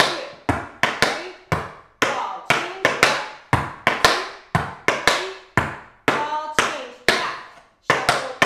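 Tap shoes striking a wooden tap board in a steady run of sharp taps, about two to three a second, each ringing briefly: tap steps danced without music.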